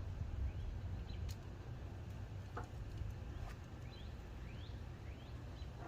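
Small bird chirping: short rising chirps, about one a second, over a steady low rumble, with a few faint clicks.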